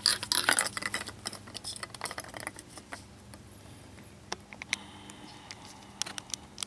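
Scattered clicks, taps and rustling of fuel filters and small parts being handled, busiest in the first couple of seconds with a few sharper clicks near the end.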